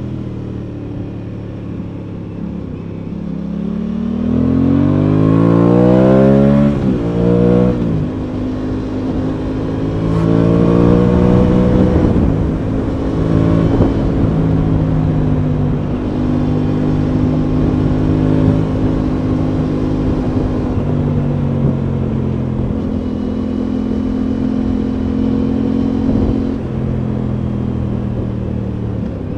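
Aprilia Tuono 660's parallel-twin engine under way. The revs climb from about three seconds in, drop sharply at an upshift about seven seconds in, climb again, then settle to a steady cruise.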